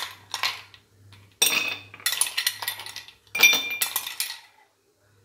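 Ice cubes dropped into glass tumblers, clinking against the glass in several quick strikes, each leaving a short high ring.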